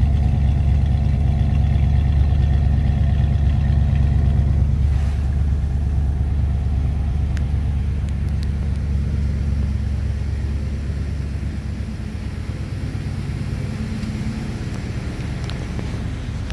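A 1996 Dodge Ram 1500's 5.2-litre V8 idling steadily, heard at the tailpipe; it grows gradually quieter after about five seconds.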